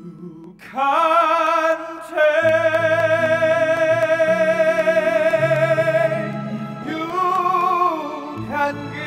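Male musical-theatre singer holding long sung notes with vibrato over a soft accompaniment of low held notes. The longest note fills the middle of the stretch, with shorter phrases after it.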